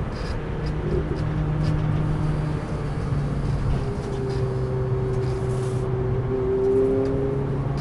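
Renault Clio RS 200's four-cylinder engine running under way at a steady mid-range pitch that dips slightly a few seconds in, heard inside the cabin over steady road and tyre noise.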